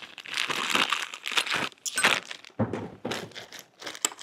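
A small plastic bag crinkling and rustling while Allen wrenches are taken out of it, in irregular bursts, with a dull knock about two and a half seconds in.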